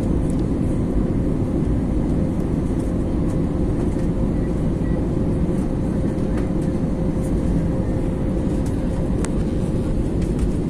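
Steady airliner cabin noise on final approach, heard from a window seat: an even low rumble of the jet engines and airflow, with a faint steady hum under it.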